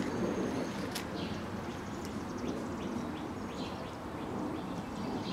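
Birds chirping and calling in short, scattered high notes over a steady low rushing noise.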